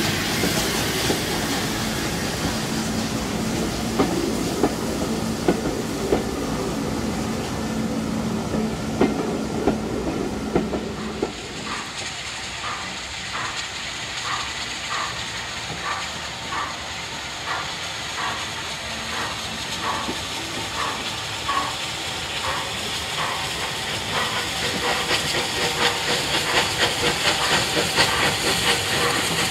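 Coaches rolling close past with wheels clicking over rail joints. About eleven seconds in, this gives way to Bulleid Battle of Britain class Pacific 34067 Tangmere's three-cylinder exhaust beats as it approaches under steam, a steady chuffing about one and a half beats a second that grows louder near the end, over a steady hiss.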